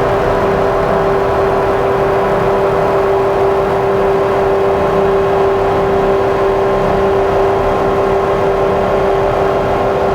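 Electronic drone from a Make Noise Strega synthesizer and a Meng Qi Wingie layered with looped drones: one strong held tone with fainter tones above it over a rough, noisy bed, slowly evolving and steady in loudness.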